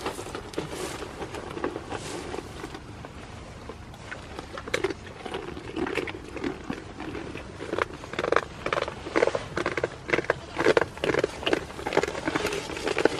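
Goats nibbling and licking at another goat's horns right at the microphone: a run of short, irregular clicking and scraping mouth sounds that grows busier and louder about halfway through.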